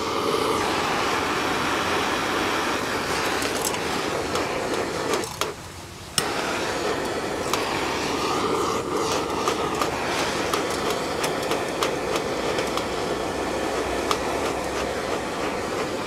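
Handheld gas torch blowing a steady flame into a bee smoker to light the dry grass fuel, with scattered crackling ticks. The flame sound drops out about five seconds in and comes back suddenly about a second later.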